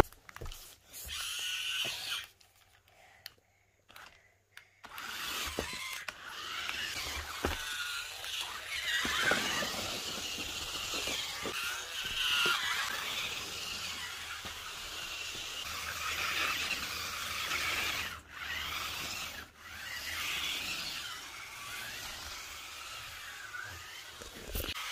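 Small electric drive motors and plastic gearboxes of a double-sided twisting stunt RC car whining as it drives and turns, the pitch rising and falling with the throttle. The whine stops for about two seconds shortly after the start, then runs almost without a break.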